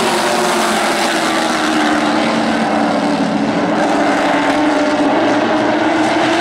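A pack of NASCAR Late Model stock cars racing together, their V8 engines running at high revs in a loud, steady drone of several overlapping engine notes.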